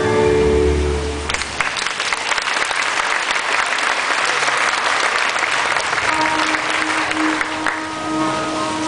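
Audience applauding, starting about a second in and dying away near the end, over the show's music with long held notes.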